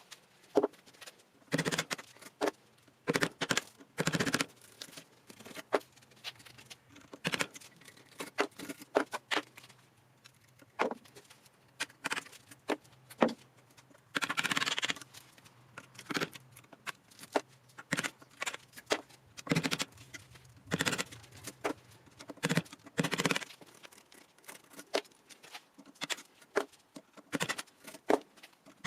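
Hand work on scrap motor parts: irregular clicks, knocks and scraping of metal pieces and tools. About halfway through there is a rasp of roughly a second, over a faint steady hum.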